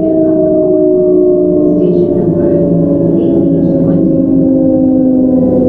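Toyo Denki GTO-VVVF inverter of a Keihan 9000 series train whining in several tones that fall slowly together in pitch, heard from inside the car. A falling inverter tone means the train is slowing, typical of regenerative braking.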